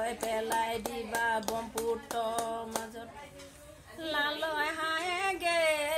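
An elderly woman singing a traditional Deori folk song unaccompanied, clapping her hands in time at about four claps a second. The clapping stops about halfway through while the singing goes on with a wavering, ornamented voice.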